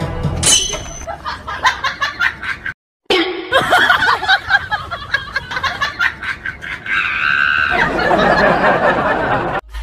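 Laughter in short bursts, broken by a brief dead-silent cut a little under three seconds in.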